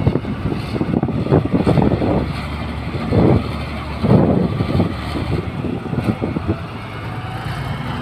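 Komatsu crawler bulldozer driving, its diesel engine running under a dense, rapid clatter from the steel tracks, with louder surges about three and four seconds in.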